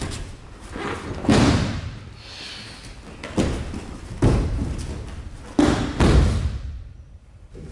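Bodies and bare feet hitting padded mats as an aikido partner is thrown and takes breakfalls: about five heavy thuds, the last two close together, then it goes quiet.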